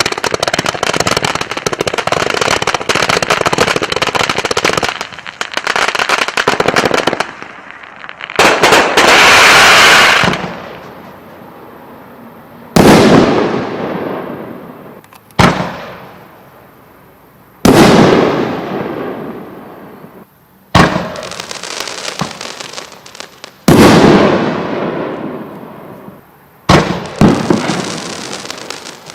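Fireworks going off: a dense run of rapid crackling bangs for about the first seven seconds, then single loud bursts roughly every three seconds, each trailing off over a couple of seconds.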